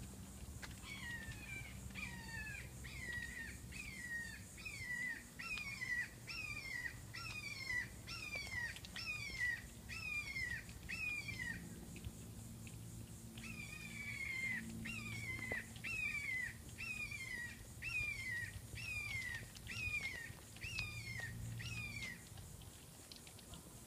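Red-shouldered hawk calls: a long series of downward-slurred kee-ah notes, about two a second. They break off for a couple of seconds around the middle, then a second series follows.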